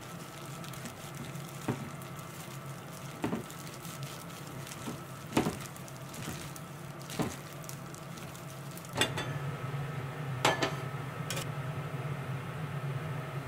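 Gloved hands mixing dressed greens and flaked mackerel in a ceramic bowl, with a few sharp clicks against the bowl. About nine seconds in, chopsticks clink against a small white pot of simmering vegetables, over a steady low hum.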